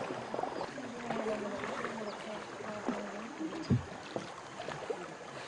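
Small boat moving on a river: a steady wash of water noise, with a single low knock a little after three and a half seconds.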